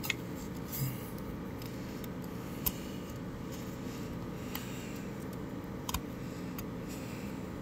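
A handful of small sharp clicks and taps as fingers press and handle the plastic blade and frame of a brushless DC cooling fan, over a steady low background noise.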